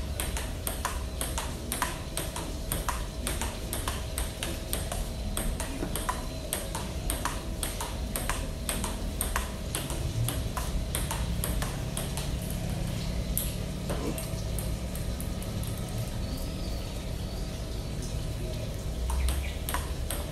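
Table tennis forehand rally: the celluloid-type plastic ball clicking off the paddles and bouncing on the table in a quick, even rhythm. The hits thin out for a few seconds past the middle and pick up again near the end.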